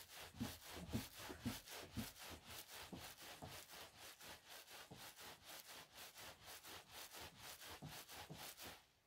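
Towel-wrapped wet-felting bundle rolled back and forth under the hands on a table: faint, even rubbing strokes, about four a second. This is the rolling stage that fulls the merino wool and shrinks it around the resist.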